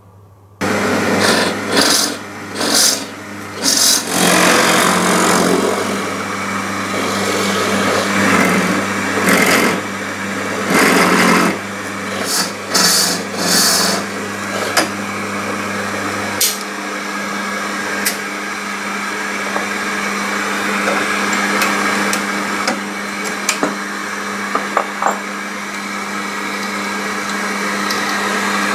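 Drill press boring holes in solid walnut, with a shop vacuum pulling the chips through a hose at the bit. The cuts come as several louder surges over the first fourteen seconds. A low hum drops out about halfway through, leaving the vacuum running with a few light clicks.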